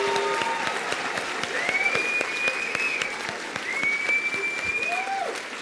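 Audience applauding at an awards ceremony, a dense patter of clapping that eases slightly near the end. Two long high tones sound over the clapping in the middle.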